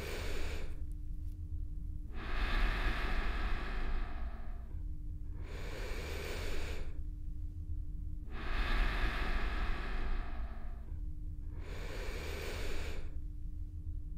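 Slow, close-miked breathing: a shorter breath and then a longer one, the pair repeating about every six seconds, over a steady low rumble.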